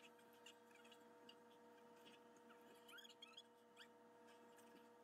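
Near silence: a faint steady hum, with scattered faint ticks and clicks from small plastic model-kit parts being handled and sanded.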